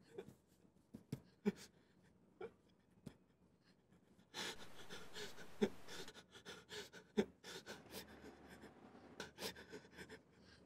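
A man panting unevenly, with a louder stretch of breath about four seconds in, among scattered small clicks and taps.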